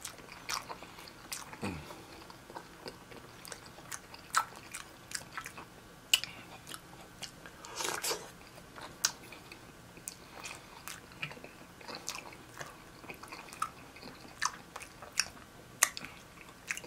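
Close-miked eating of a seafood meal: biting and chewing with many sharp, irregular wet clicks and smacks, and a longer crunchy rustle about eight seconds in.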